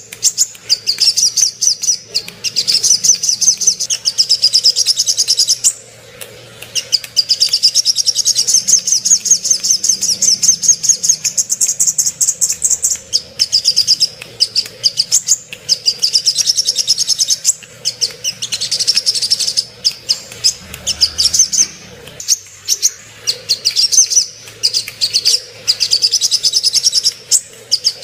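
Sogok ontong (spiderhunter) singing: long runs of rapid, sharp, high chirps, several notes a second, broken by a few brief pauses. It is a lure song used to rouse captive birds of the same kind into singing and breeding condition.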